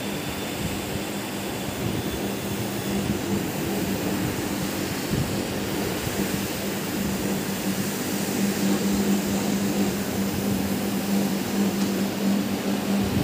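Single-disc rotary floor machine running as its brush scrubs carpet with shampoo: a steady low motor hum over an even hiss.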